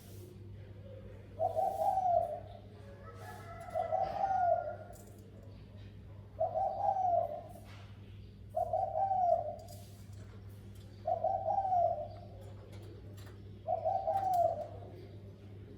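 Spotted dove cooing, one call of about a second repeated every two to two and a half seconds, six times in all, in the deep 'thổ sấm' style that keepers play to lure and provoke other doves.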